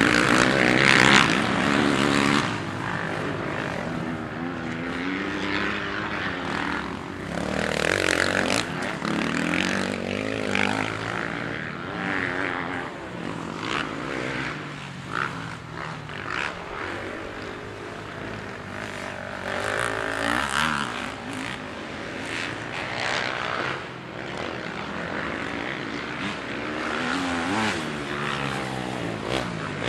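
FPV drone's electric motors and propellers whining. The pitch rises and falls constantly with the throttle, over a rush of air, and is loudest in the first couple of seconds.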